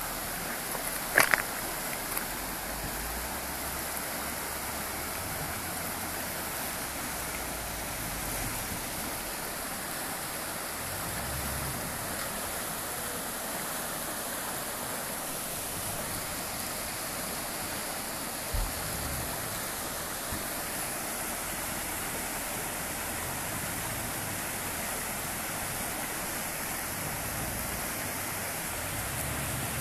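Shallow, fast river rushing over stones: a steady hiss of running water. A sharp knock comes about a second in and a smaller one at about 18 seconds, and a faint low rumble comes and goes underneath.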